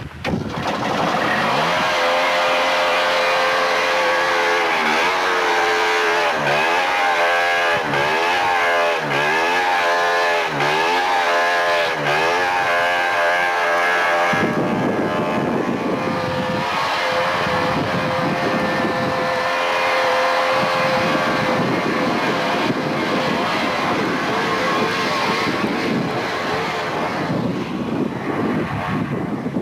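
Motor vehicle engine revving up and down over and over, about once every second and a half, then settling into a steadier, noisier drone about halfway through.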